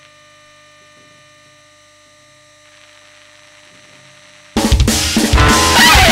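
A faint steady hum made of several held tones, then about four and a half seconds in a loud punk rock song starts suddenly, with a drum kit and distorted electric guitar.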